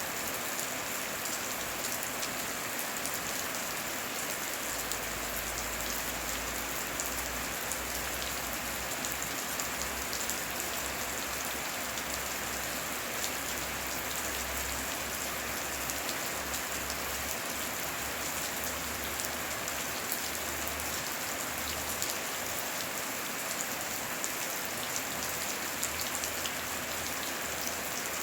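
Heavy rain falling steadily: a dense, even hiss with fine patter of individual drops striking.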